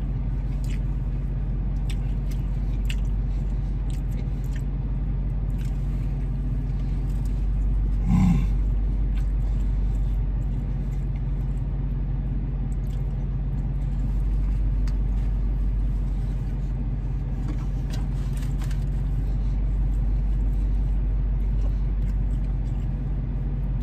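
Steady low rumble of an idling car heard from inside the cabin, with the small clicks and smacks of a man chewing a burger. A short vocal sound about eight seconds in.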